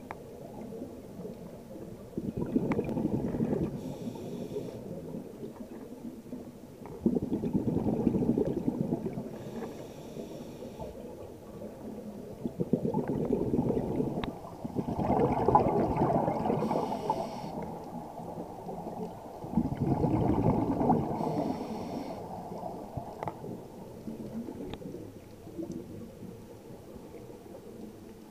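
Scuba breathing heard underwater: a diver's exhaled bubbles from the regulator rumble and gurgle in bursts of a couple of seconds, five times, about every five seconds.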